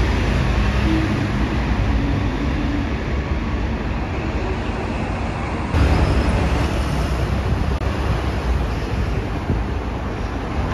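Street traffic noise: a steady rumble and hiss of passing vehicles. It changes abruptly about six seconds in, where one recording gives way to another.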